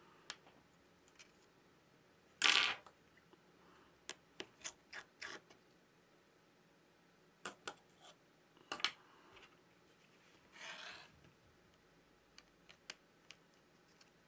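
Small sharp clicks and taps of tweezers and a pry tool on a smartphone's internal parts as flex connectors and the charging board are unclipped, with a short scraping rustle about two and a half seconds in and a softer one near eleven seconds.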